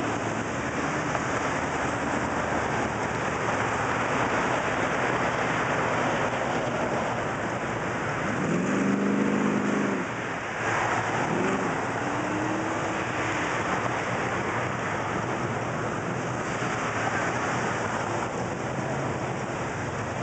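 Steady, dense rush of slow-moving street traffic heard from inside a car. About eight seconds in, a brief pitched sound rises and holds for over a second. A fainter rising tone follows a couple of seconds later.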